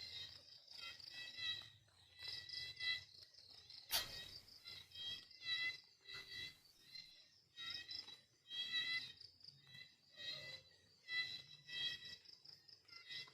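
Crickets chirping in short, pulsing chirps repeated over and over, with one sharp click about four seconds in.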